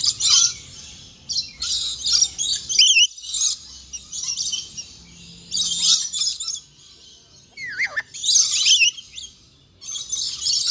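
Lorikeets calling in repeated loud, noisy bursts of chatter, with one call sliding down in pitch about three-quarters of the way through.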